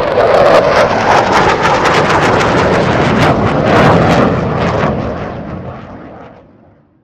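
Jet aircraft flying past: loud rushing jet noise with a crackling edge, fading away from about four seconds in.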